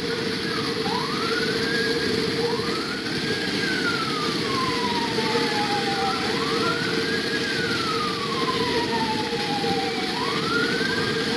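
Emergency siren wailing, its pitch rising quickly and falling slowly four times, over a steady rushing roar of floodwater.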